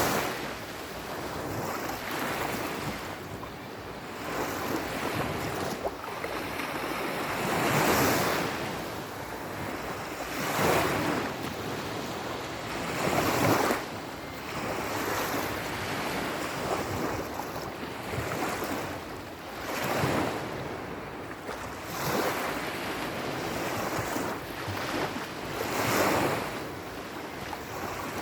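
Sea surf: waves breaking and washing in, the rushing noise swelling up and falling back every few seconds.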